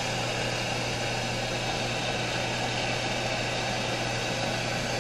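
Hand-held propane torch burning with a steady hiss while its flame heats a copper pipe joint for soldering.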